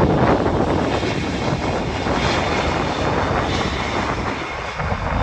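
Airliner engines running with a steady noise, mixed with strong wind buffeting the microphone.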